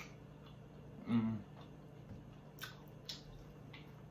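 Close-miked mouth sounds of eating: a brief low vocal sound about a second in, then a few sharp wet lip smacks and chewing clicks as food is bitten.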